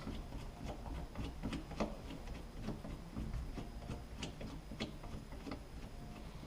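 Screwdriver turning a screw out of a door pull handle: a run of irregular light clicks and ticks.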